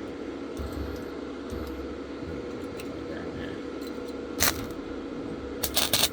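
Lincoln flux-core wire-feed welder striking short arcs on steel square rod over a steady low hum: a brief crackle about four seconds in, then a half-second burst of spitting, crackling arc near the end, as in tack welds.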